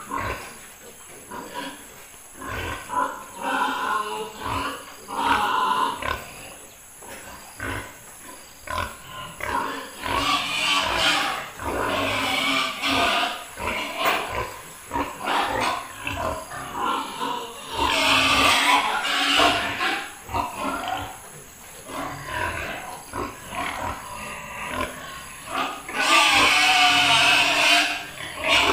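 Domestic pigs in their pens grunting on and off, with louder, high-pitched squeals about two-thirds of the way through and again near the end.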